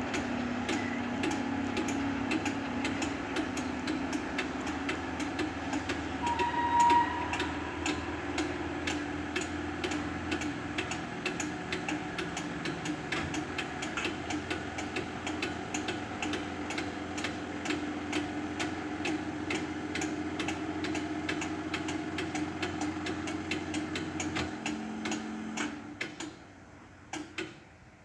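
Level-crossing bell ticking rapidly and evenly over the steady hum of the Fs64 barrier mechanisms as the booms lift after a train has passed. The hum stops near the end, and the ticking stops a moment later. A short squeak sounds about seven seconds in.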